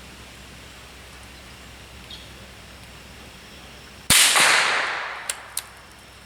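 A single rifle shot about four seconds in, its echo trailing off over about a second, followed by two short sharp clicks.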